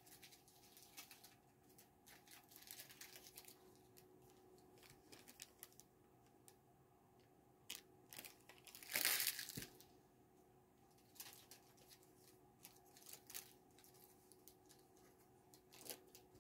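Paper being handled, faint crinkling and rustling with scattered small clicks, and one louder rustle lasting about a second near the middle.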